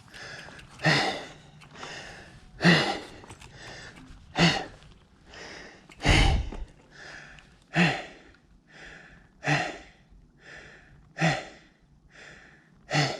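A person breathing hard and evenly after exertion, with a loud exhale about every 1.7 seconds and a softer inhale between. A low thud about six seconds in.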